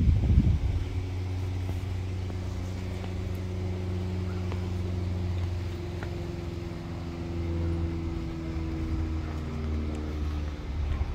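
A motor vehicle's engine running, a steady low hum whose pitch slowly shifts, with a brief louder rumble at the start.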